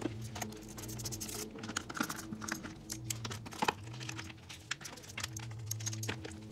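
Light, irregular clicks and taps of a T-handle wrench and bolts as the plastic radiator shroud is unbolted from a Beta dirt bike, over a steady low hum.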